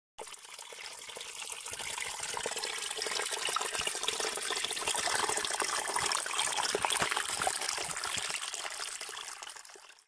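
A small stream of water trickling and splashing over rocks and soil in a little cascade. It comes in suddenly, grows louder, then fades out near the end.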